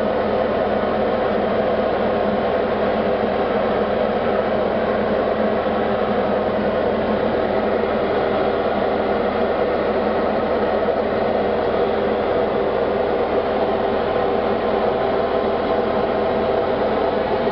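Diamond light aircraft's engine and propeller running steadily in flight, heard from inside the cockpit as a constant drone.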